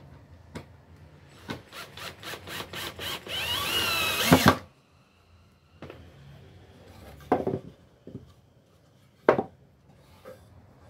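Cordless drill/driver driving a screw into a pine board: a quick series of short whirs, then a continuous run of about a second whose whine drops as the screw seats, stopping sharply. A couple of separate knocks follow as the drill and the wood are set down on the bench.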